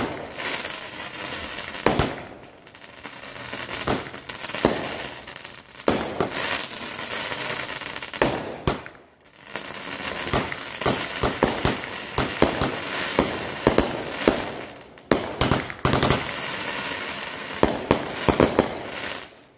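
Consumer aerial firework cake firing: a rapid series of launch thumps and bursting bangs over continuous crackling. There is a brief lull about nine seconds in, and the firing stops abruptly near the end.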